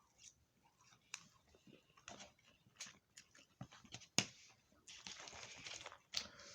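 Quiet eating and handling noises: scattered soft clicks and taps, a sharper click about four seconds in, and about a second of rustling near the end.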